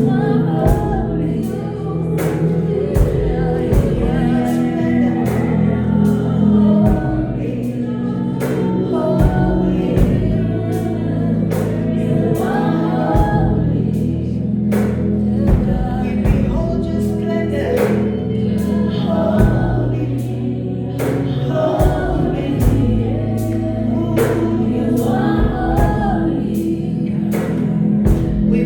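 Live gospel worship music: several voices singing over a band with sustained bass and a steady drumbeat.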